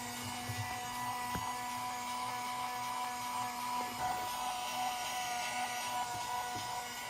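A small electric toy motor whirring steadily at a constant pitch, with a few faint clicks.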